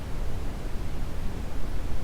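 Brown noise: a steady, even rushing hiss weighted toward the low end, with no tones or separate events.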